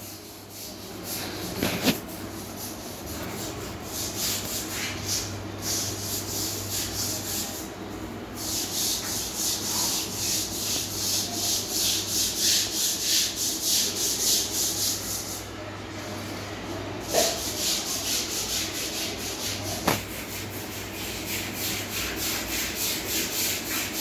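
Pet parrot making a rhythmic scraping, rubbing sound, about two strokes a second, with a few short clicks.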